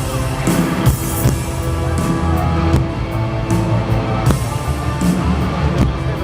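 Rock band playing an instrumental passage: drum kit, heavy bass and electric guitar, with no singing.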